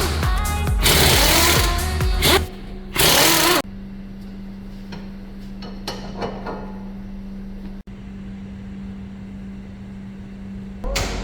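A power tool runs in loud bursts during the first three and a half seconds. After that only a steady low hum remains, with a few faint clicks.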